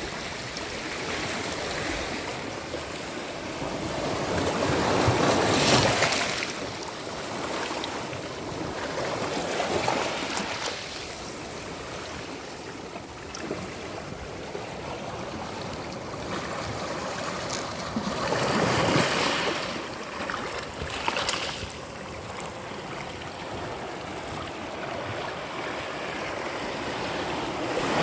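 Sea waves breaking and washing up on a sandy beach, a steady rush of surf that swells several times, loudest about six seconds in and again near nineteen seconds.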